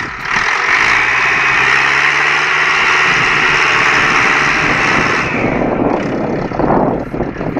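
Farm tractor engine running hard and steady under load, trying to pull a trailer loaded with hay bales out of mud; it eases off about five seconds in.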